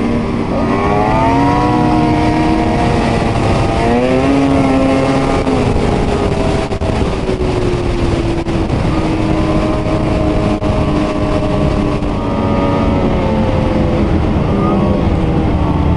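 Ski-Doo two-stroke E-TEC snowmobile engine running under way on a trail, its pitch climbing and easing off again and again as the throttle is worked.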